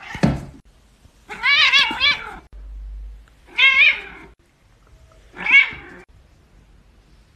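Domestic cat meowing three times, each call about half a second to a second long and wavering up and down in pitch. A short thump just before the first meow.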